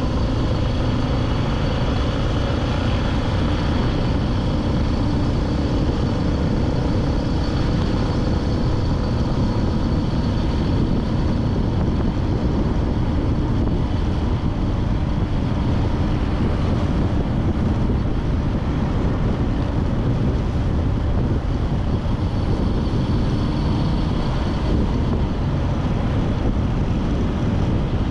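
Steady wind rumble and road noise from riding along a road on a moving motorbike, with the engine's hum underneath.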